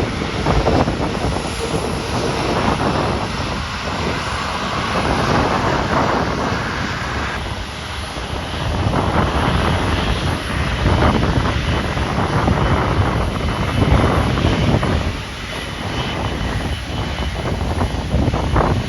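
Airliner engines running as a plane passes on takeoff or landing, a steady roar, with strong wind buffeting the microphone in gusts.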